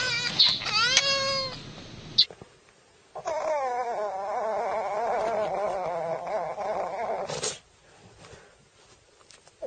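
A house cat meowing, then a long, wavering yowl lasting about four seconds.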